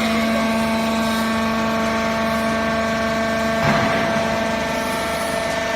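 Hydraulic foam baler's motor and pump running with a steady hum, with one short burst of noise about two-thirds of the way through.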